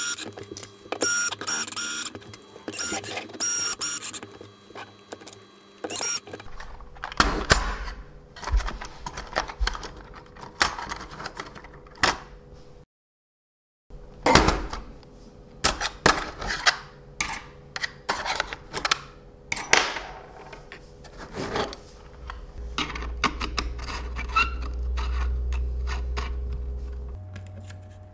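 Electric screwdriver driving M4 bolts into a 3D-printed plastic gearbox lid, its motor whining in short bursts. After that come many sharp clicks and knocks of plastic parts, bolts and tools being handled, with a low hum for a few seconds near the end.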